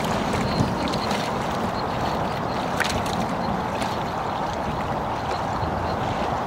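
Steady wind over the lake with choppy water lapping and splashing at the stony shore.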